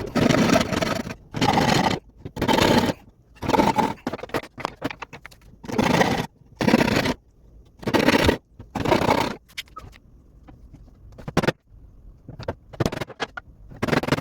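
A hand tool scraping along wood in about eight long, repeated strokes with short pauses between them. These give way to lighter, scattered clicks and short scrapes for the last few seconds.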